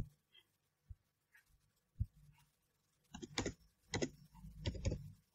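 Typing on a computer keyboard: a few separate keystrokes, then a quicker run of them from about three seconds in.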